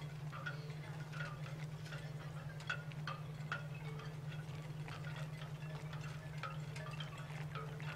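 Background music: light, bell-like chiming notes at an uneven pace over a steady low sustained tone.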